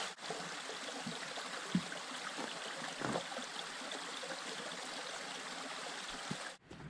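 Small stream running over its bed: a steady rush of flowing water with a few faint knocks. It cuts off suddenly near the end.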